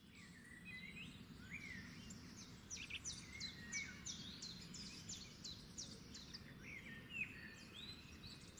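Birds singing and calling, a run of quick sharp chirps and short whistled sweeps, over a faint steady low rumble.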